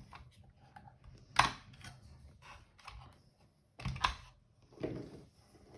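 Sharp clicks and knocks of hard plastic parts being handled on an opened robot vacuum: one loud click about a second and a half in, then a few more around four and five seconds.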